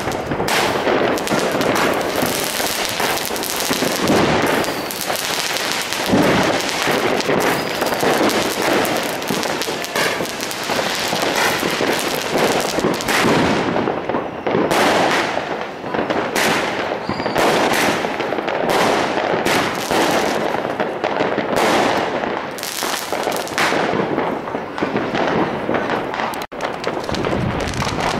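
Fireworks going off in a dense, continuous barrage of overlapping bangs and crackling, broken only by a brief lull near the end.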